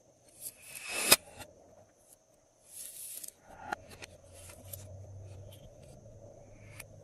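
Glossy slime being worked by hand: sticky crackles and clicks in short bursts, the loudest a sharp click about a second in.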